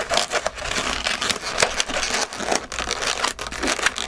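Gloved hands rubbing, squeezing and pressing inflated latex twisting balloons, a quick irregular run of short rubbing and crackling noises as the balloon pumpkin is pushed flat.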